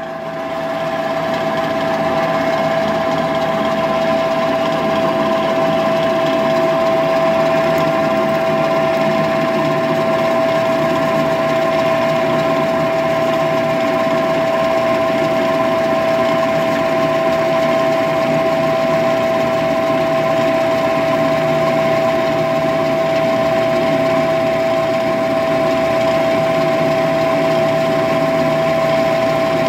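Drill press running with a steady whine as a 7/32-inch twist bit cuts into a metal bar clamped in a drill press vise, drilling the tap hole for a grease fitting.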